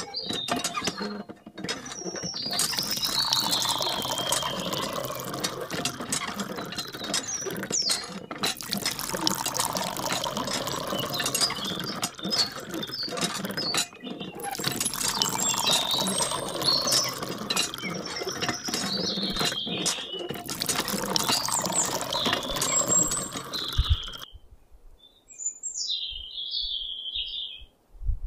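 Hand water pump being worked: a squeaking, clicking pump mechanism with water running, going in four long stretches with brief breaks. It stops about four seconds before the end, leaving only a few faint bird chirps.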